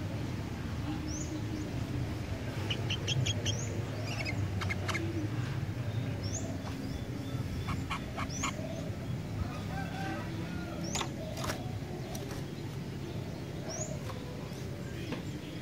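Small songbirds chirping: short rising chirps every second or two, with a few quick runs of clicking notes, over a steady low rumble.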